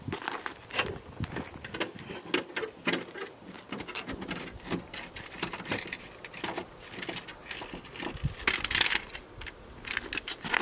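Metal tools clicking and rattling in quick irregular strokes during a car wheel change, with a louder scrape about nine seconds in.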